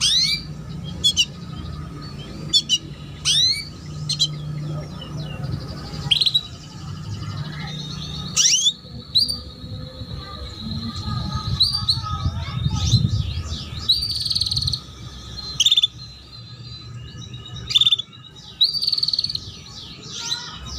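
Canaries chirping: short, sweeping call notes repeated every second or two, with a few brief trills.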